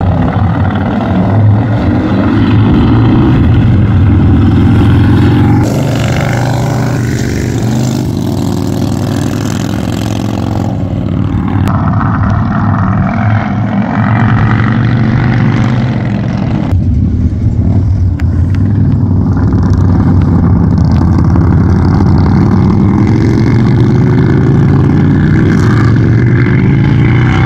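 Motorcycle engines running and accelerating on a winding road, their pitch gliding up and down. The sound changes abruptly several times, as clips are cut together.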